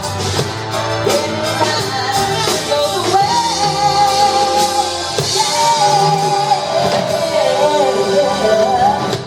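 Band music with a lead singer holding long, wavering melodic notes over drums.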